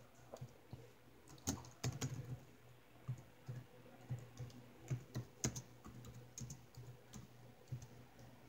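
Laptop keyboard being typed on: light, irregular key clicks, a few a second.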